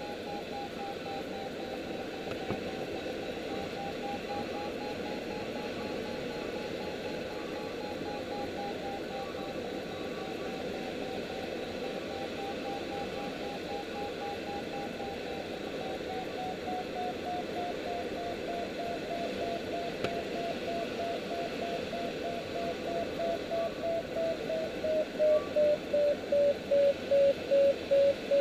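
Glider cockpit with air rushing past the canopy and an electronic variometer sounding a steady tone that slowly falls in pitch, then breaks into regular beeps, about one and a half a second, near the end.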